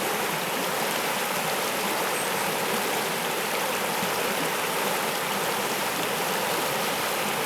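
Flowing water of the Laurel Fork river running steadily, an even, constant rush of water noise.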